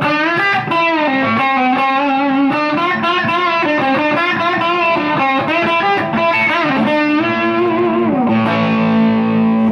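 1962 Gibson ES-330 hollow-body electric guitar with P-90 pickups, played through a Two-Rock amp and Zendrive overdrive pedal: a single-note lead line with string bends and vibrato. About eight seconds in it settles on a held chord that rings on.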